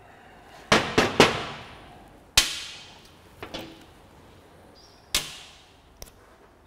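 Sharp metallic clanks as a propshaft and its universal-joint parts are handled in a steel bench vise and set down on a metal workbench, each clank ringing out. Three come in quick succession about a second in, then single ones follow at intervals, the loudest two near the middle and towards the end.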